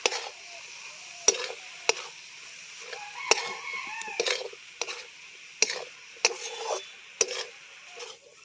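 Metal spatula stirring and tossing cabbage in a metal wok, scraping and knocking sharply against the pan about once a second over a light sizzle.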